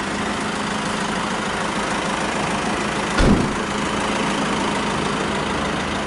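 Parked passenger minibus engine idling steadily. A single dull thump comes about three seconds in.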